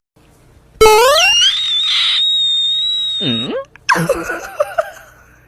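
A loud, high-pitched scream that shoots up in pitch about a second in, is held on one steady pitch for about two seconds, then breaks off. Wavering, lower cries follow and fade near the end.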